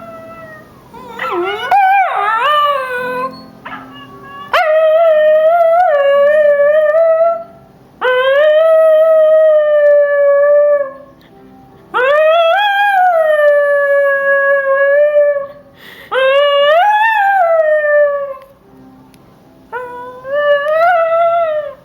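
Miniature schnauzer howling: a run of about six long, high howls, each lasting a few seconds with short pauses between. The first howl wavers up and down and breaks into yips.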